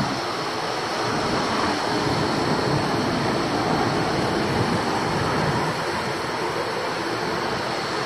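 Steady, even rushing noise with no clear pitch or rhythm.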